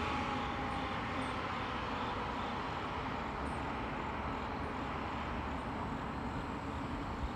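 Fire apparatus pulling away down the street: a steady rumble of engine and road noise that slowly fades as the vehicles recede, with the tail of a siren winding down in the first second or so.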